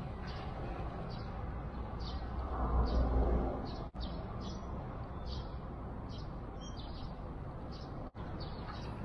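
A small bird chirping over and over, short high chirps about twice a second, over steady low outdoor background noise that swells briefly about three seconds in.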